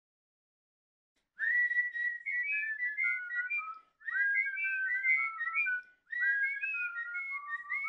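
A tune whistled in two-part harmony, starting about a second and a half in and going in three short phrases.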